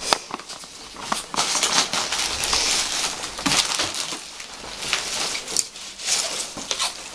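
Packing material crinkling and rustling as items are handled and unwrapped from a shipping box, with scattered light knocks and clicks.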